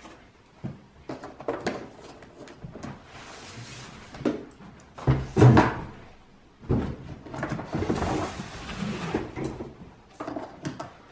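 A cardboard shipping carton being handled as the boxed iMac is lifted out of it: short knocks, cardboard scraping and rustling against the foam lining, and one loud thump about halfway through.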